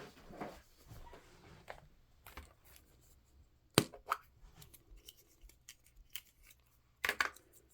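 Hands handling small items and packaging: light rustling and tapping, with a sharp click about halfway through and a short run of clicks near the end.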